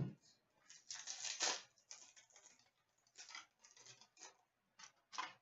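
Hockey trading cards and their pack wrapper being handled: a string of short rustles and sliding scrapes as cards are shuffled through, the loudest cluster about a second in.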